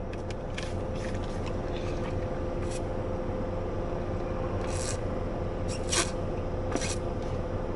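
Thick milkshake being sucked hard through a plastic straw, giving a few short airy sucking noises, mostly in the second half. A steady low hum fills the car cabin underneath.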